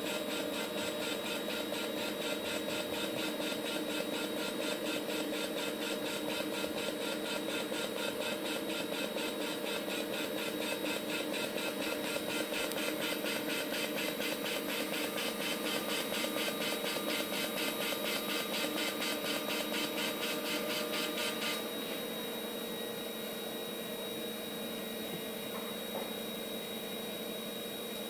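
AMI 9-2500 closed orbital welding head fusion-welding (TIG) a stainless tube: the arc buzzes with a rapid, even pulse over a steady machine hum. About 22 seconds in the arc cuts off suddenly at the end of the weld, leaving only the steady hum.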